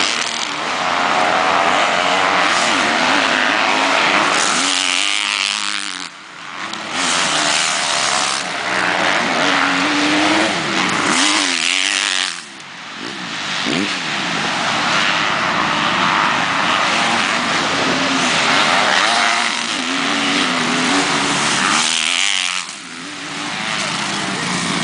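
Motocross dirt-bike engines racing on the track, revving up and backing off as the riders work the throttle over the jumps. The noise dips briefly three times, about six, twelve and twenty-two seconds in.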